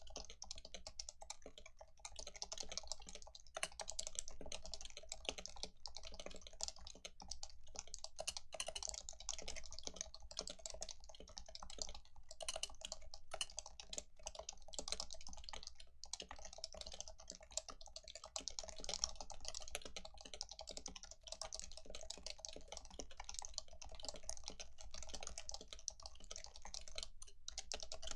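Fast, continuous typing on a stock Leopold FC660C keyboard with Topre 45g dome switches, the keystrokes coming in a dense stream with a brief pause near the end.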